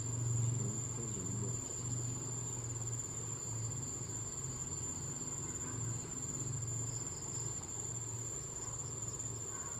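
Insects, crickets or similar, chirring as a steady high-pitched whine, with a low wavering rumble underneath.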